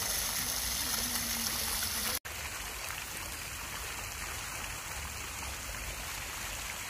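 Garden fountain jets splashing steadily into a stone pool. About two seconds in the sound cuts out for an instant, and a softer, steadier rushing noise follows.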